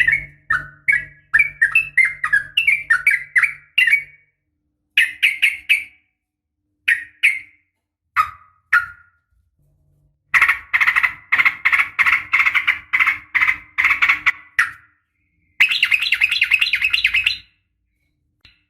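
Sooty-headed bulbul (trucukan) calling, a female's call used as a lure: short groups of sharp whistled notes with clean silences between them, a long run of rapid notes midway, and a faster, harsher chatter near the end.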